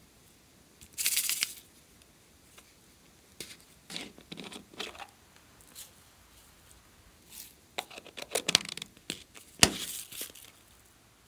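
Tiny plastic sprinkles shaken and poured out of a small plastic pumpkin-shaped jar, rattling and rustling in short bursts: one about a second in, several in the middle and more near the end. Near the end there is a sharp plastic click as the jar's lid is handled.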